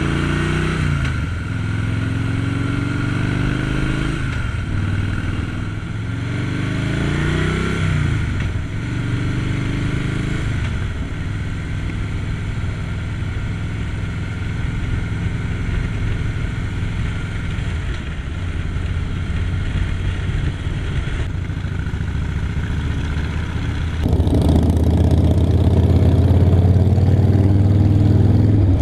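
Harley-Davidson V-twin motorcycle engine under way on the road. Its note rises several times in the first ten seconds as the bike accelerates through the gears, then it cruises steadily. About four seconds before the end it switches abruptly to a louder, deeper motorcycle engine sound.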